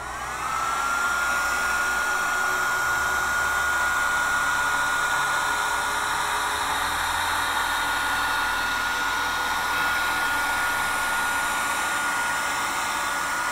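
Heat gun starting up and running steadily, a rush of air with a motor whine that rises as it spins up and then holds steady, heating foam to seal its pores.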